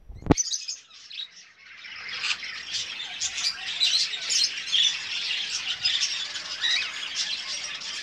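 A sharp click, then a busy chorus of caged pet birds chirping and squawking over one another, growing fuller about two seconds in.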